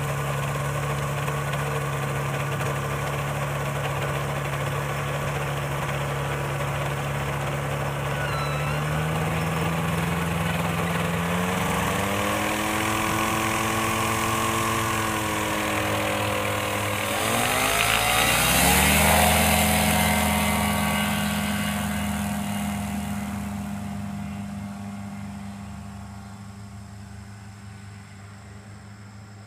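Propeller aircraft engine running steadily, then rising in pitch as it is throttled up. After a brief dip it settles at a higher pitch, is loudest about two-thirds of the way in, and then fades steadily as the aircraft moves away.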